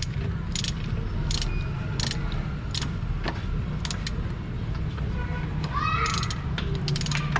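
Ratchet wrench clicking in a run of short strokes, about one sharp click every 0.7 s and faster near the end, as the scooter's oil drain bolt is screwed back in.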